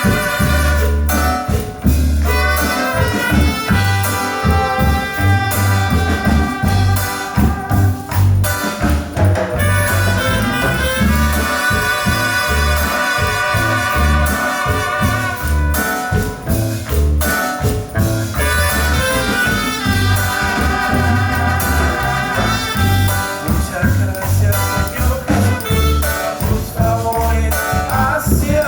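Upbeat music with brass over a strong, regular bass beat.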